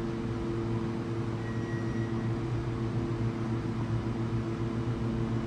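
Otis hydraulic elevator car travelling between floors: a steady mechanical hum of several low tones. A faint, brief high tone sounds about one and a half seconds in.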